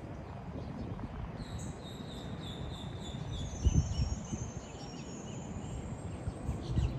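Wind buffeting the microphone, with a louder bump a little before four seconds. Birds call faintly in the background with thin, high whistling notes, some held and some sliding down, from about a second and a half in to about five and a half seconds.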